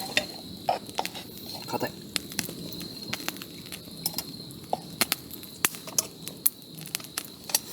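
Wood campfire crackling with irregular sharp pops, over a steady high insect trill.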